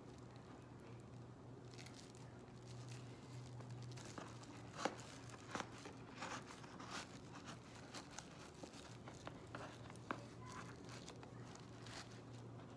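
Faint crinkling and rustling of a weaving made of plastic and foil wrapper strips as hands pull the weft threads down on a lap loom, with scattered small clicks.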